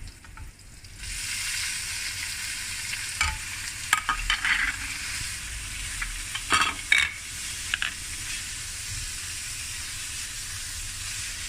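Minced meat sizzling in hot oil in a frying pan as it goes in, the hiss starting about a second in and then holding steady. A stirring utensil clatters and scrapes against the pan several times in the middle as the mince is stir-fried.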